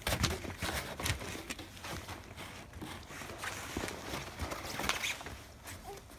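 Footsteps crunching and scraping in packed snow, with a few sharper crunches in the first second and again around five seconds in.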